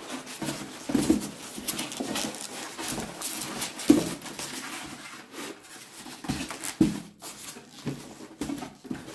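Styrofoam packing blocks rubbing against a cardboard box and plastic wrap rustling as a deep fryer is worked out of its packaging. Irregular scrapes and rustles, with a louder knock about one second in and another about four seconds in.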